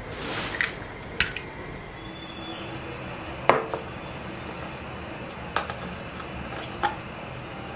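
Glassware handled on a wooden counter: a brief rush of noise at the start, then four separate sharp clinks and knocks of glass set down and moved, the loudest about three and a half seconds in.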